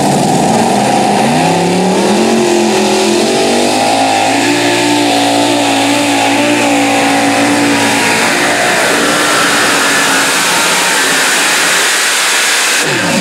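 Super modified pulling tractor's several supercharged engines at full throttle under load as it pulls the sled, loud throughout. The pitch climbs over the first few seconds, holds at high revs, then turns rougher and less tonal about nine seconds in.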